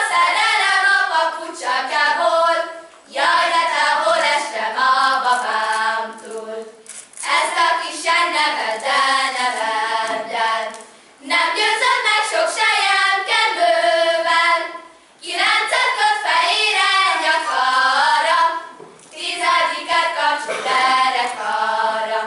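A group of girls singing a Hungarian folk song without instruments, in phrases of about four seconds, each followed by a short pause for breath.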